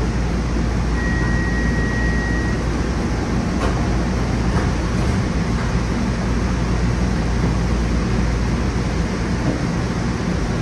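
Steady hum and drone of a light-rail train's onboard equipment and ventilation, heard from the driver's cab while the train stands at a platform and starts to pull away. A single held high beep sounds about a second in, lasting about a second and a half.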